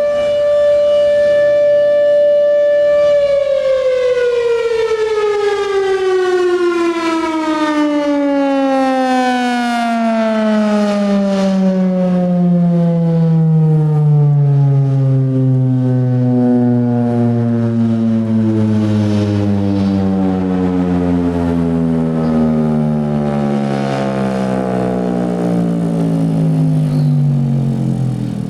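Federal Sign & Signal Thunderbolt 1000 civil defense siren holding a steady, loud tone for about three seconds, then winding down in a long, slowly falling tone as the blast is cut off and its rotor coasts down. The pitch sinks to a low growl by the end.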